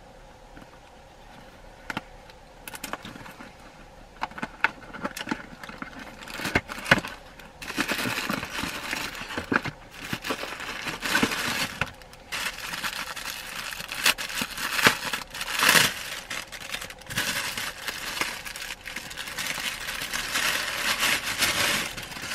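Clear plastic wrapping crinkling and crackling as hands work a bag of disposable surgical masks open and pull the masks out: a faint click near the start, then irregular crackling that gets busier and louder from about seven seconds in.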